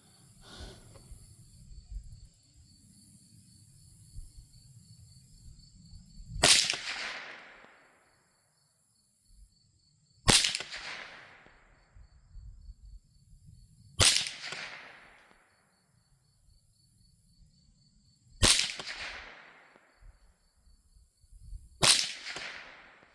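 Five shots from a Savage A22 semi-automatic .22 LR rifle, spaced three to four seconds apart, each a sharp crack that trails off over about a second.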